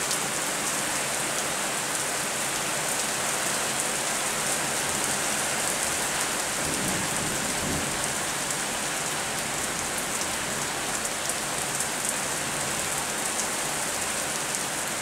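Rain falling steadily, with a brief low rumble of distant thunder about halfway through.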